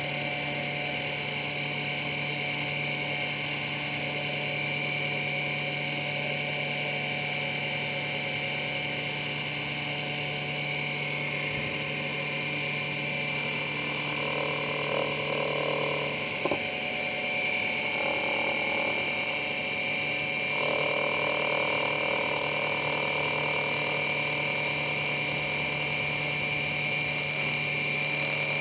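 Chinese micro lathe's small electric motor running steadily with a high whine as it spins a wooden workpiece. From about halfway the cutting tool bites into the wood on and off, adding a rougher cutting noise and one sharp click.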